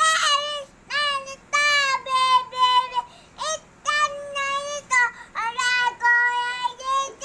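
A young boy singing a Filipino folk song alone, in a high voice with long held notes and short breaths between phrases.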